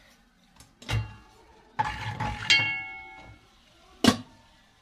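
Stainless-steel pot lid and cookware clattering: a knock about a second in, a clatter about two seconds in that leaves the metal ringing for about a second, and a sharp knock near the end.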